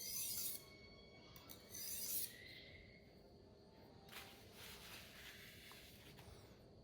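Knife edge drawn lightly across a wet 800-grit waterstone in a few separate deburring strokes, each a short faint scrape, about two seconds apart.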